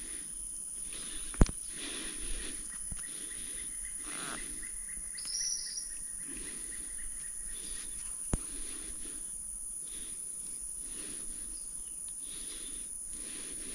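Steady high-pitched buzzing of insects, with a few short bird chirps. Two sharp clicks come about a second and a half in and again about eight seconds in.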